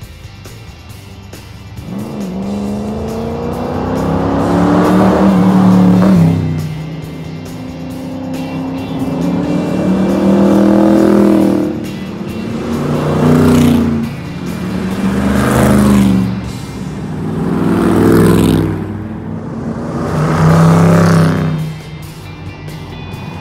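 A line of about six Cobra roadsters passing by one after another under power, their V8 engines loud. Each engine note builds and rises as the car approaches, then drops in pitch as it goes past.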